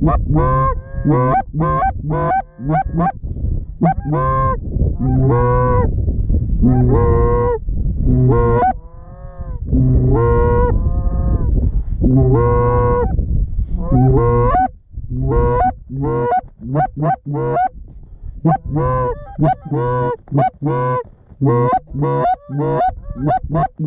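Geese honking in quick succession, about two to three honks a second and often overlapping, with brief lulls.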